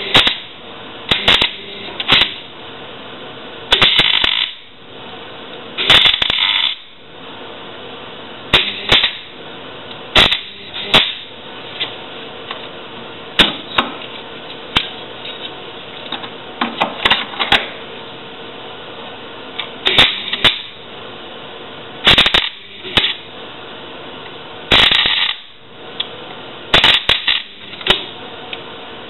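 MIG welder arc laying short tack and stitch welds on a van's steel rear beam: repeated crackling bursts, each from a fraction of a second to about a second long, with short pauses between them. A steady low hum runs underneath.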